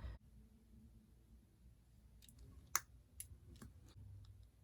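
Faint small clicks of a replacement wheel axle being pressed into a toy car's base, with one sharper click a little past halfway.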